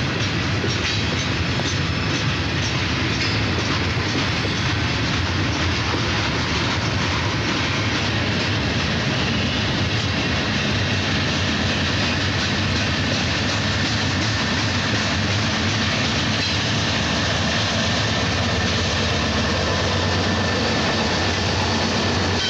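Heavy freight train going by: several BNSF diesel locomotives working under load on a heavy coil-steel train, with a steady engine sound and the cars rolling past on the rails.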